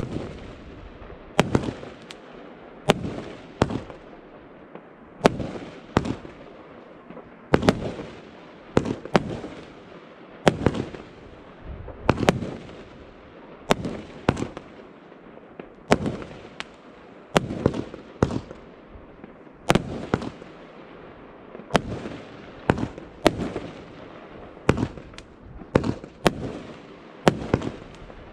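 Argento Feuerwerk 'Valentin' 30 mm fan cake firing its shots in a slow, even sequence. Each shot is a sharp bang followed by a short echoing tail, about one every second and a half.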